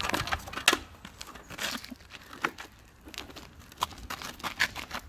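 Irregular clicks and knocks of a hoverboard kart attachment's frame and seat being handled and shifted.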